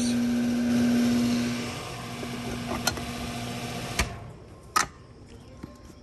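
Lennox condenser fan motor running noisily with a steady hum and air rush, turning backwards (in reverse). The sound drops in level about two seconds in, and again about four seconds in after a sharp click.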